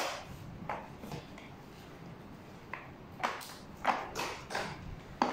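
Stroller frame and fittings clicking and knocking as it is handled: a sharp click at the start, then a series of lighter clicks and clacks, several close together in the second half.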